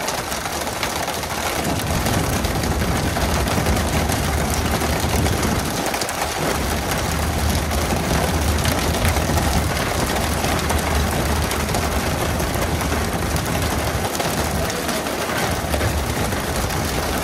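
Tuna being pole-caught and flung onto a boat deck: a dense, rapid clatter of fish slapping and flapping on the deck over the steady low hum of the boat's engine and the rush of water along the hull.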